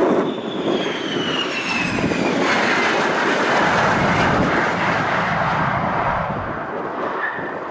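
A Boeing F-15QA Eagle fighter jet's twin General Electric F110 turbofan engines passing by: a loud, dense jet noise with a whine that falls in pitch over the first couple of seconds, easing off slightly near the end.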